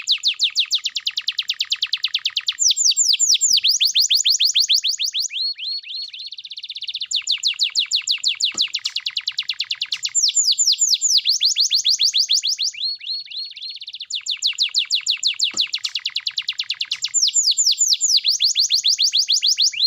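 Domestic canary in full, unbroken song: rapid trills of quickly repeated downward-sweeping notes, switching to a new phrase every second or two.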